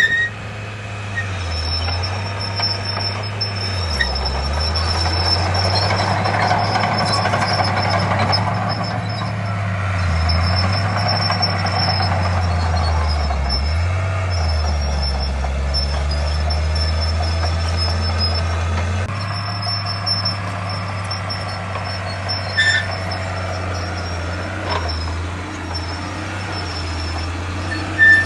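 Heavy diesel earthmoving machinery running, the engine note dipping and recovering a few times as it takes load.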